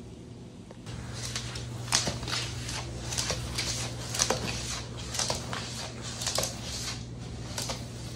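Iguana's claws scratching and clicking on a laminate floor as it walks, in irregular strokes starting about a second in.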